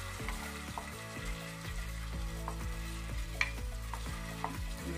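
Palm oil sizzling as it heats in a metal pot, on its way to being bleached, with scattered sharp clicks of a wooden spoon scraping the last of the oil out of a bowl.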